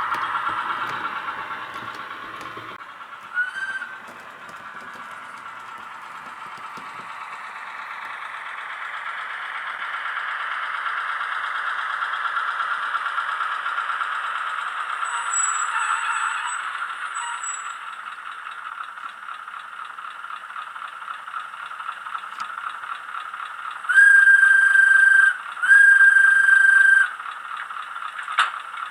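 The sound decoder of an HO-scale NS series 200/300 diesel shunter model plays its engine sound through the model's small loudspeaker. The engine note swells for several seconds in the middle, then settles lower. Near the end come two steady horn blasts, each about a second and a half long, louder than the engine.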